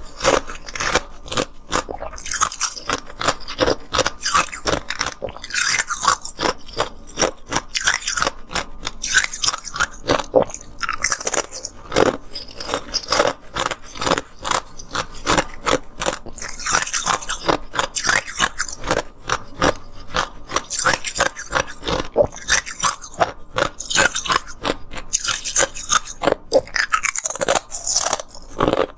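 Ice being bitten and chewed: clear moulded ice discs crunched into many crisp, irregular cracks and crackles, with a short lull near the end.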